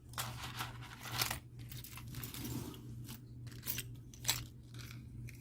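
Rustling and crinkling of jewelry packaging being handled, with a few sharp clicks and taps, the loudest a little after four seconds in.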